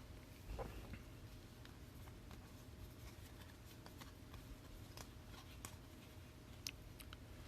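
Faint, scattered light clicks and rustles of trading cards being handled, over a low steady room hum.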